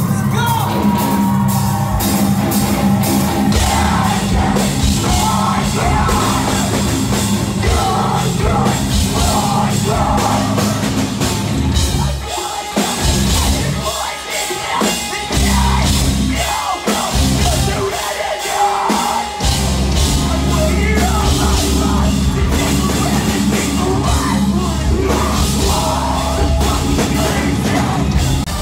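A live heavy rock band playing loud, with distorted guitars, drums and yelled vocals, heard from within the crowd. About halfway through, the low end drops out briefly several times in a stop-start passage.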